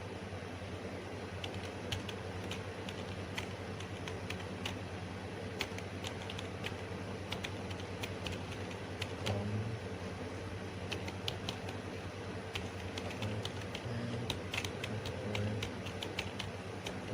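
Computer keyboard being typed on: irregular runs of quick key clicks, over a steady low background hum.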